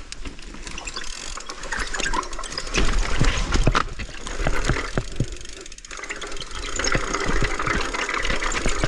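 Mountain bike rolling down a rough dirt trail: tyre noise with frequent knocks and rattles as the bike goes over roots and rocks, and low wind rumble on the microphone.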